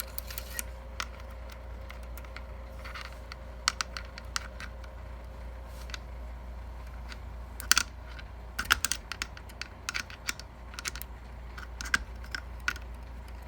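Irregular sharp metallic clicks and light scrapes of a Micro Draco pistol's parts being handled and fitted together during reassembly, as the recoil spring goes back in. The loudest cluster of clicks comes a little past halfway.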